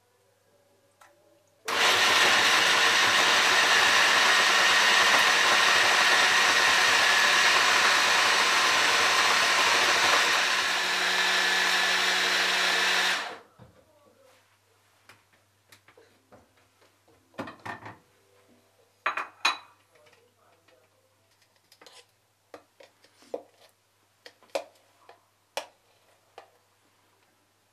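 Electric blender motor running steadily for about eleven seconds, its tone dropping a little shortly before it is switched off and stops abruptly. This is followed by a scattering of light knocks and clicks.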